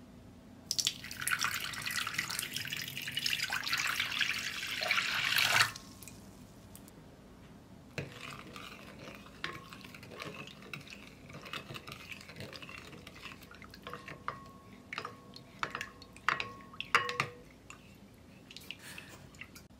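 Warm water poured from a measuring jug into a glass bowl for about five seconds, growing louder before it stops sharply. Then a spoon stirs the water to dissolve the yeast and sugar, with scrapes and light clinks against the glass bowl.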